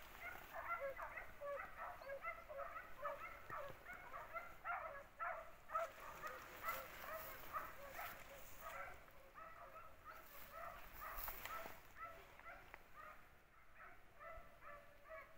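A pack of hunting hounds barking on a wild boar hunt: many faint, overlapping high yelps, thinning out near the end.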